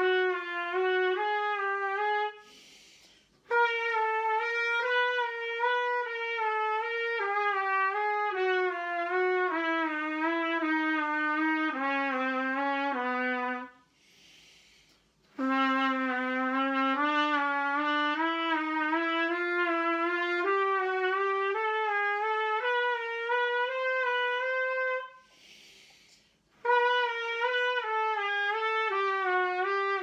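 Trumpet playing long slurred phrases that move in small pitch steps, first stepping down and then back up, with a quick breath between phrases three times. It is the 'sliding scales' lip exercise, in which the player lowers the note a semitone with the lips rather than the valves, keeping the syllable 'hee'.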